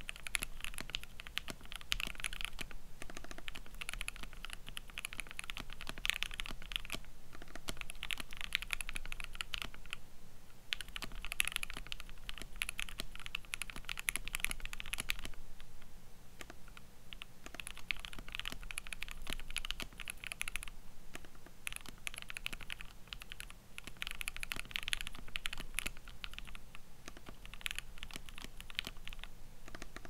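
Fast typing on a 60% mechanical keyboard in an acrylic case, fitted with thick PBT cherry-profile keycaps: a dense run of key clacks that continues with a few brief pauses.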